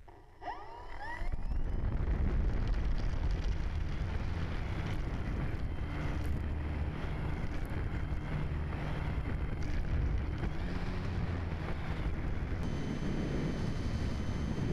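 Electric motor of a Multiplex FunCub RC plane spinning up with a rising whine. Then loud propeller wash and wind buffet the onboard camera's microphone as the plane runs at power. Near the end a steady high motor whine joins the rushing noise.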